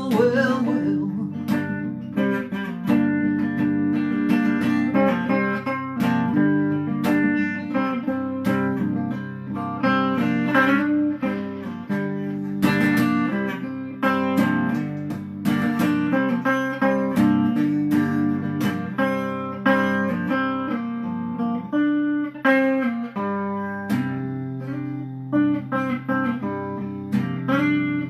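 Guitar played solo, steady strummed chords with picked notes between them, as an instrumental break in a song with no singing.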